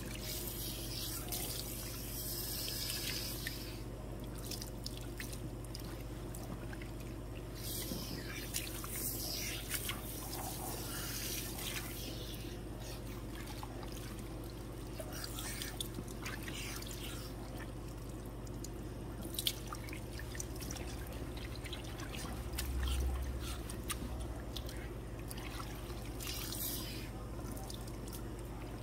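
Water from a salon shampoo-bowl hand sprayer running through long wet hair and splashing and dripping into the basin while fingers work the hair, rinsing out a relaxer. The spray swells in several short bursts over a steady low hum.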